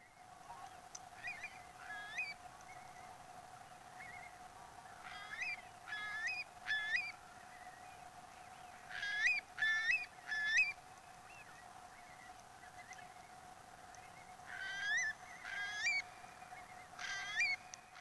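Eurasian curlew calling: clear rising whistled notes in runs of two to four, with pauses between runs. A steady faint hum runs underneath.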